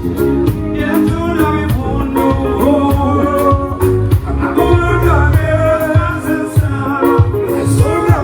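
Live band music at a sound check: a singing voice over a steady bass line and a regular drum beat.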